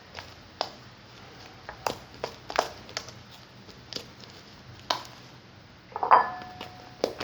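A series of scattered light knocks and clinks, then a louder clink about six seconds in that rings briefly with a steady tone.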